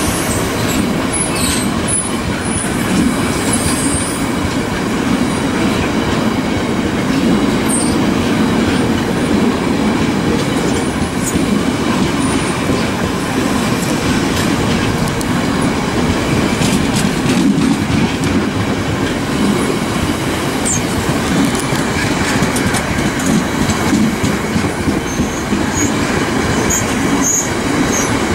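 Freight train of bogie hopper wagons rolling past with a steady, loud rumble and clatter of wheels on the rails. Brief high wheel squeals are heard near the start and again near the end.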